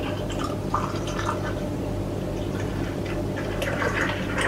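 Beer being poured from a bottle, a thin stream splashing and gurgling in short spells, over a steady low hum.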